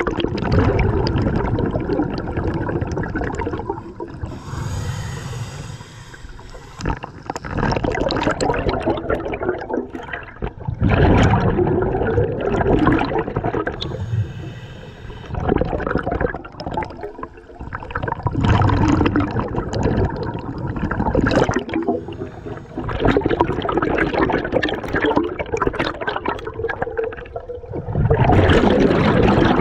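Scuba diver breathing through a regulator underwater: repeated rushes of exhaled bubbles, each a few seconds long, alternating with shorter, quieter inhales that carry a faint hiss from the regulator.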